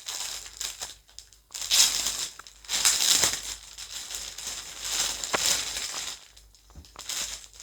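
Packaging around a T-shirt crinkling and rustling as it is handled, in several separate bursts.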